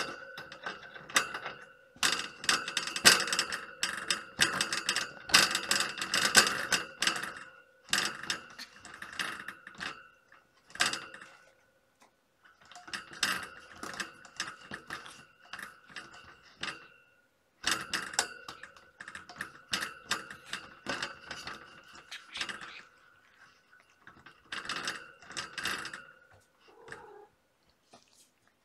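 Cat toy clicking and rattling in rapid bursts of a second or two, with short pauses, as a kitten bats it about.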